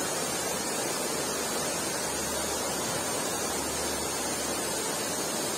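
Steady rush of flowing river water, an even noise with no change.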